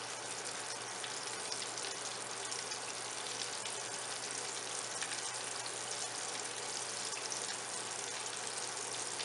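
Flour-coated boneless chicken cubes deep-frying in hot cooking oil in a wok: a steady, even sizzle.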